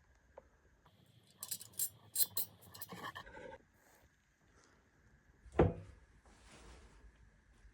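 Small metal pieces clinking against each other in a quick cluster, then a single sharp knock about five and a half seconds in.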